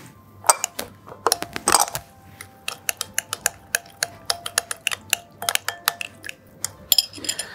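Metal utensil clinking against a glass mixing bowl while miso, vinegar and sugar are stirred together into sumiso sauce: quick, fairly even clinks, several a second, each with a faint ring from the glass.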